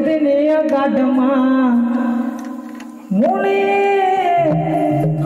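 A man singing a gana folk song into a microphone in wavering, held notes. About three seconds in, after a quieter dip, he rises into a long note that falls away near the end, with light percussion taps behind the voice.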